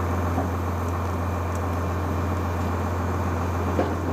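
A fire engine running steadily to pump water to a hose line, heard as a low, even drone under rough noise, with a light knock near the end.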